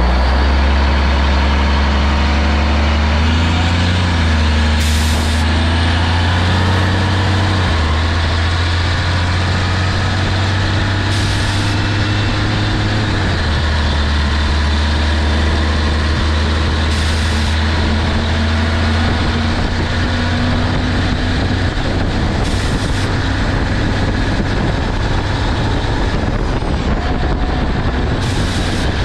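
1988 Mack CF fire truck's diesel engine running while driving, its engine note changing in steps through several gear changes in the first half, then evening out under road noise. A brief hiss recurs about every six seconds.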